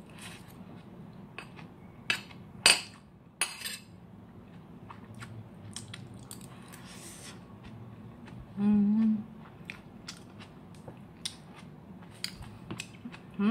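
Metal spoon clinking and scraping against a bowl several times, sharpest about two to three and a half seconds in, between quiet eating sounds. About nine seconds in comes a short hummed "mm".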